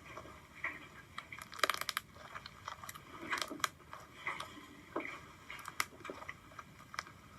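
Slime being squeezed and popped by hand, its trapped air bubbles going off in irregular wet clicks and crackles, with a quick run of pops a little under two seconds in.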